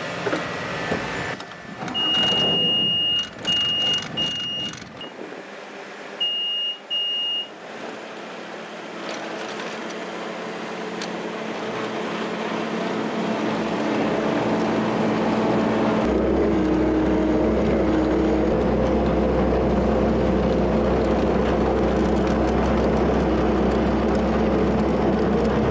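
Bobcat S550 skid-steer loader: a few high electronic beeps from the cab, then its diesel engine running, growing louder over several seconds and holding steady, with a deep rumble joining about two-thirds of the way in.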